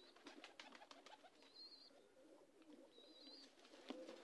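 Faint cooing of domestic pigeons, low wavering calls that come and go, with short high chirps about once a second.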